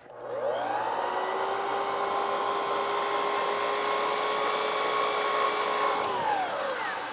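Festool sliding compound miter saw: the motor spins up, runs steady while the blade cuts through a PVC trim board, then winds down about six seconds in.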